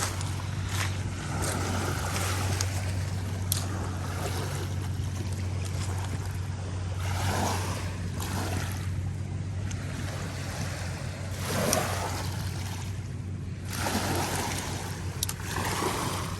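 Lakeside wind and lapping water over a steady low hum, with a few soft swells.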